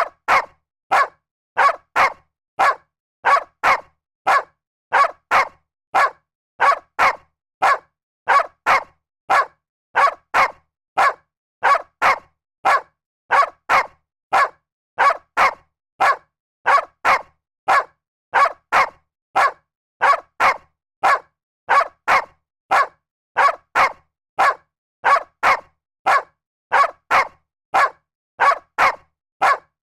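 A dog barking over and over at a steady pace, about one and a half short barks a second, with silence between them.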